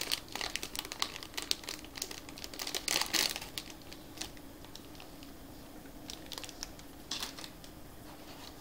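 Small clear plastic packet crinkling as it is handled, with dense crackles for the first three seconds or so, then only a few scattered crinkles.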